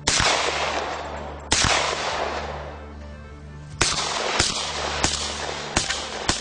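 Izhmash Saiga 12 semi-automatic 12-gauge shotgun firing a series of about seven shots at uneven intervals, each with a long echoing tail, over background music.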